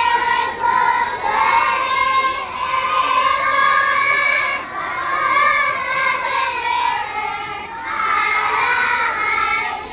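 A group of young children singing a song together in unison, in phrases of two to three seconds with short breaks between them.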